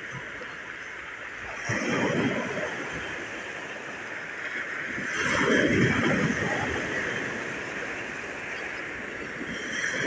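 Sea waves breaking and washing up a pebble beach, surging twice, about two seconds in and louder around five to six seconds in, with another surge starting near the end.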